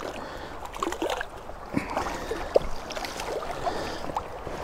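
Shallow river water splashing and gurgling as a hooked trout is brought to hand at the surface, with scattered small drips and splashes over the steady flow.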